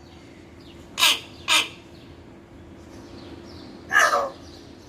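Pet hill myna calling: two short, harsh calls about half a second apart about a second in, then a longer call near four seconds.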